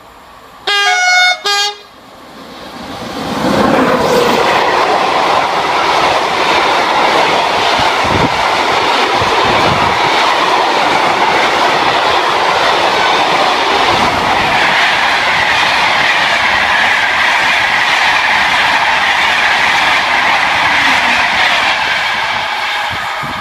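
SNCF BB 7200 electric locomotive sounding its horn as it approaches, a longer blast then a short one, about a second in. Then the loud, steady rolling noise of the train passing close at speed, wheels on rail with a few knocks, fading near the end.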